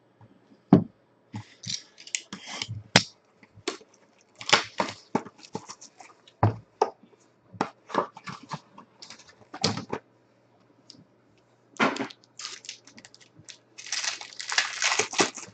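Trading-card packaging being handled: a string of sharp clicks and knocks from a card box being opened, then a dense crinkling as a foil wrapper is peeled and torn open near the end.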